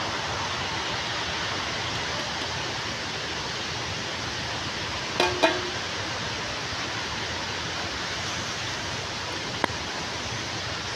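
Steady hiss of heavy rain and rushing water. Two short knocks come about halfway through, and a single sharp click near the end.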